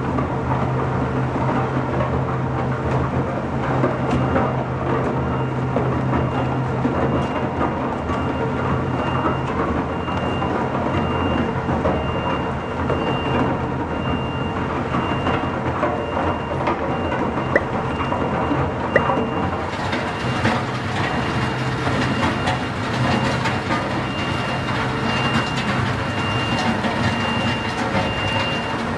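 Twin-shaft industrial shredder running under load, a steady motor hum under the continuous crunching and crackling of its cutter shafts tearing through paper and plastic waste.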